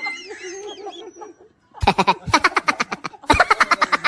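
Laughter sound effects: a high, wavering laugh trails off, and after a brief pause a second laugh starts, a rapid run of about seven 'ha's a second that stops briefly and goes on.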